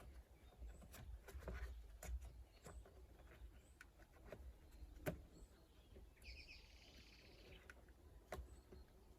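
Near silence: faint scattered clicks and taps, with a short chirping trill, like a bird's, about six seconds in.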